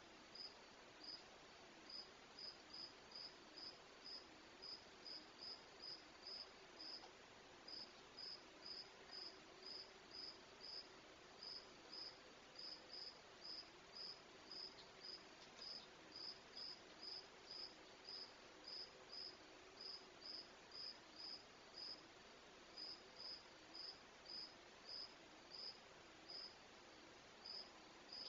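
An insect chirping steadily outdoors at night: short, high chirps about two a second, with a few brief pauses. A faint low wavering hum runs underneath.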